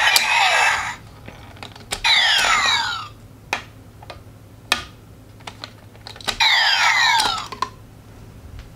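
CSM Double Driver toy belt (Kamen Rider W) playing electronic sound effects from its speaker: two bursts of falling synth sweeps, about two seconds in and again about six and a half seconds in. Between them come sharp plastic clicks as Gaia Memory sticks are handled and snapped into the belt's slots.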